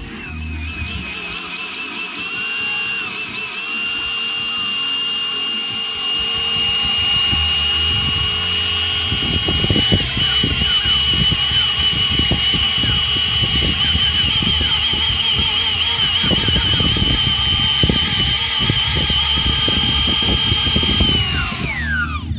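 Brushless motors of a homemade quadcopter spinning its propellers, a steady high-pitched whine that climbs a little in pitch in the first seconds and wavers near the middle, with a gusty low rumble from about halfway. The motors spin down with a falling whine near the end.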